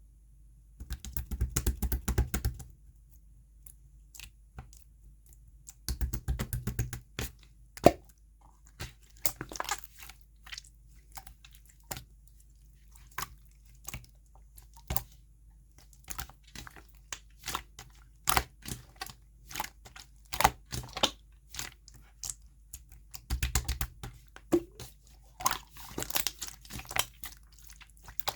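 Slime being pressed and stretched by hand, making sticky clicks and small popping air pockets, with denser crackling runs about a second in, around six seconds in and near the end.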